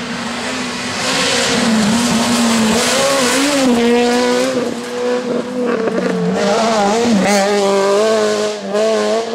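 Rally car passing at speed on a forest stage, then pulling away. Its engine revs loudly, the pitch climbing and dropping several times, over a strong hiss of tyre and road noise.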